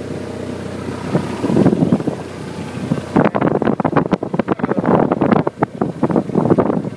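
Motor vehicle running steadily, heard from on board. About three seconds in, heavy wind buffeting on the microphone sets in as rapid, irregular thuds and lasts until near the end.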